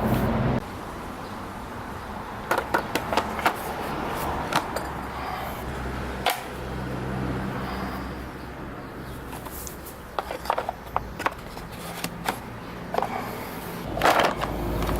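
Irregular clicks and knocks, several in quick clusters, of hand tools from a car's toolkit being picked up and handled against each other and their case.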